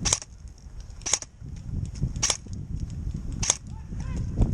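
An airsoft gun firing single shots: four sharp cracks a little over a second apart. Wind rumbles on the microphone underneath.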